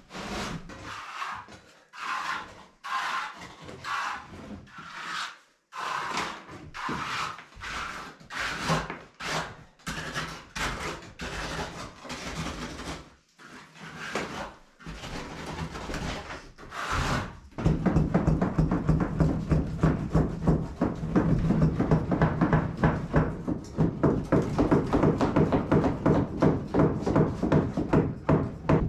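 Wet concrete being worked by hand: repeated scraping strokes of a screed board or trowel across the fresh slab, about one a second. About two-thirds of the way in, a louder, fast, evenly repeating sound takes over.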